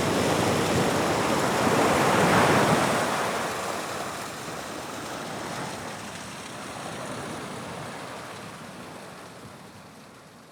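Atlantic waves breaking on the shore: one surge of surf swells to a peak two to three seconds in, then slowly dies away and fades out.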